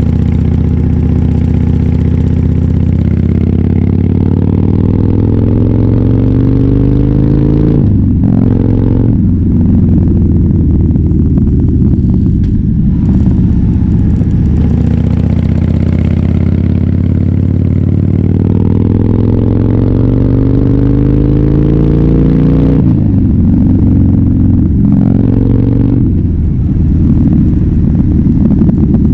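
Harley-Davidson Fat Bob V-twin running through a KessTech ESM3 aftermarket exhaust under way. The engine note climbs steadily over long stretches and drops back sharply a few times, about 8, 23 and 25 seconds in.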